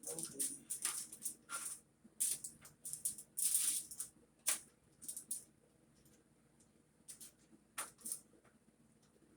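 Crinkly kitchen wrapping being handled: irregular rustling and crinkling in short bursts, thinning out to a couple of single crackles after about five seconds.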